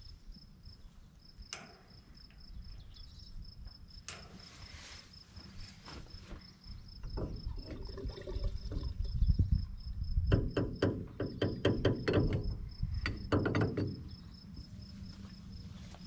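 An insect chirps steadily in a fast, even, high-pitched pulse. A run of loud knocks and clatter sounds through the middle.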